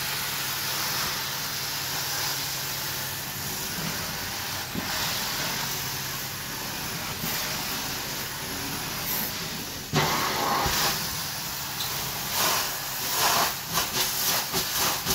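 Hot-water extraction carpet-cleaning wand spraying and vacuuming on carpet: a steady hiss of spray and suction. About ten seconds in it turns louder and uneven, rising and falling with the wand's passes.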